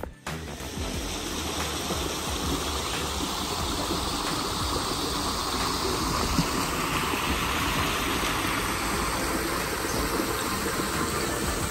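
Running water rushing steadily, like a stream or small waterfall.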